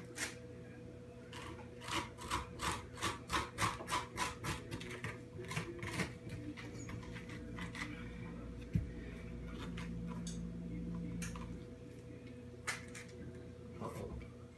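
A spoon scraping seeds and stringy pulp out of a halved spaghetti squash: a quick run of about ten scrapes at roughly three a second, then slower, scattered scrapes.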